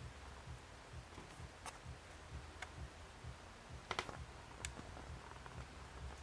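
Pine marten chewing and gnawing on food close by: faint scattered sharp clicks and crunches, with a quick cluster of clicks about four seconds in.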